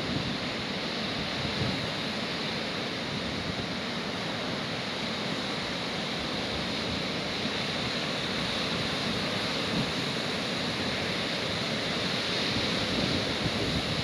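Lake waves breaking steadily on a beach, with wind blowing and buffeting the microphone in a low, fluttering rumble.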